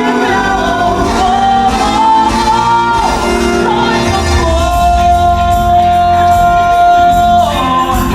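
A stage musical's song: singing over instrumental accompaniment, with one voice holding a long steady note from about halfway through to near the end.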